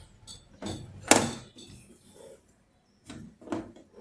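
A handful of short knocks and clunks from copper tubing being handled and set in place, the loudest about a second in.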